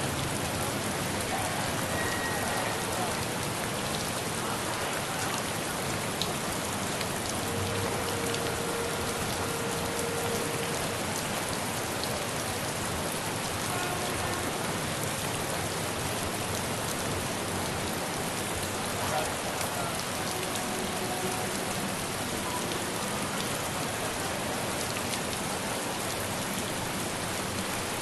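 Steady rain falling, an even hiss with scattered drop ticks, at a constant level throughout.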